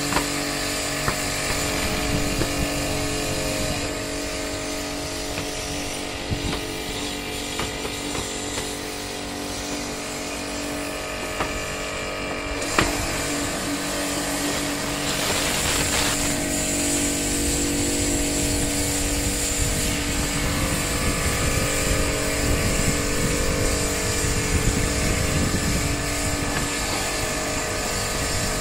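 Pressure washer running steadily while its jet hisses against the ribbed steel roof sheets, with a few sharp ticks.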